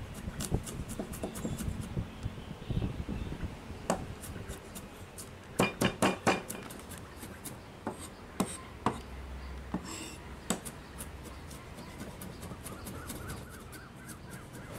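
A cleaver chops red onion and garlic on a wooden cutting board. The blade knocks on the board in quick runs, with a burst of about five loud strikes near the middle, then sparser, lighter chops.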